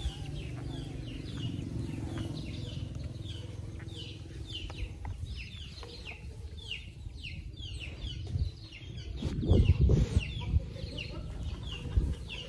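Young chickens calling, a steady run of short falling peeps about two or three a second. There is a louder burst of low rumbling and rustling about nine to ten seconds in.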